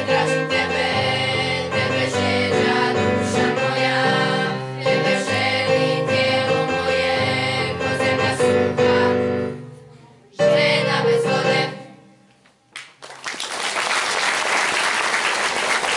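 Children's choir singing over instrumental accompaniment with piano. The song ends with a short final phrase about ten to eleven seconds in, and after a brief pause the audience applauds.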